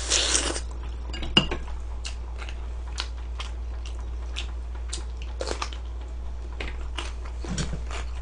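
Close-miked eating sounds: chewing and mouth smacks with scattered short sharp clicks, one louder click about a second and a half in, over a steady low hum.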